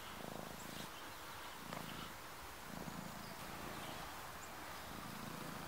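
Long-haired domestic cat purring in slow, low pulses, one every second or so, while it is being brushed.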